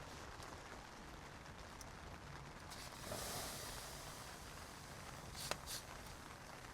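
Light rain falling steadily, with a brief rustle about three seconds in and two sharp clicks near the end.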